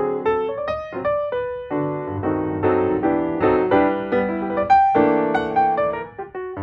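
Piano music, a melody of notes changing every fraction of a second.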